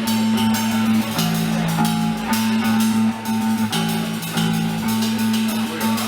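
Live americana band playing an instrumental passage: guitar chords changing every second or so over a drum kit, with no singing.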